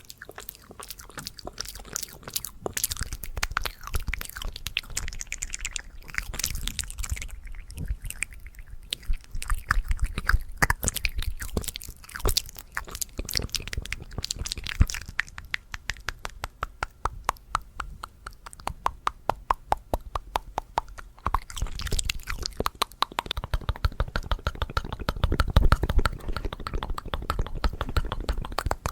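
Close-miked ASMR mouth sounds: rapid wet clicks and smacks of tongue and lips, dense throughout, with a long run of even, fast clicks in the middle.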